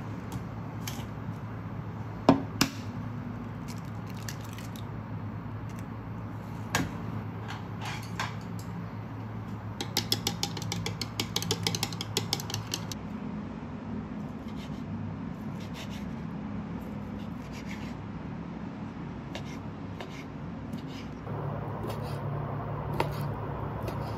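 Egg cracked against the rim of a bowl with two sharp knocks, then beaten briskly with chopsticks in the bowl, a rapid clatter for about three seconds. Near the end a knife cuts through sausages onto a wooden board, over a steady low hum.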